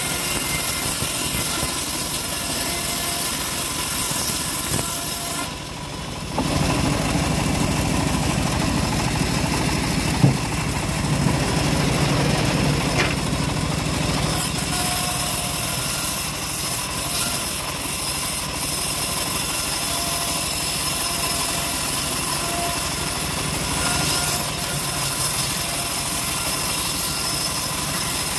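Homemade engine-driven bandsaw sawmill running steadily, its engine and band drive humming with many steady tones. The sound briefly drops in level about six seconds in, and there is a single sharp knock about ten seconds in.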